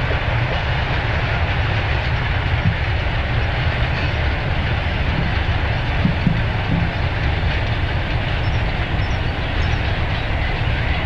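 Freight wagons of a long mixed goods train rolling past, a steady rumble of wheels on the track with clickety-clack over the rail joints and a few faint knocks about halfway through.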